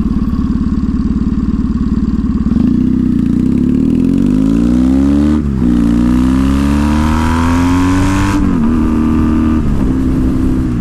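Motorcycle engine accelerating under way: the revs climb, drop suddenly as it shifts up about five seconds in, then climb again until they fall back just past eight seconds and hold steady. A rush of wind builds as speed rises.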